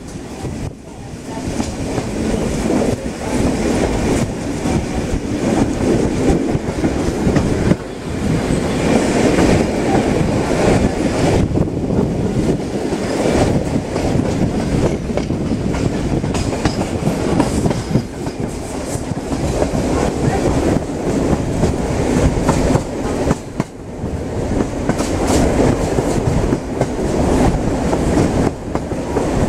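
Steam-hauled train's carriage running along the track, heard from an open carriage window. A steady rush of noise carries many quick clicks of the wheels on the rails.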